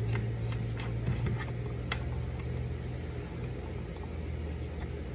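A steady low electrical hum, with a few faint clicks and taps of objects being handled on a workbench.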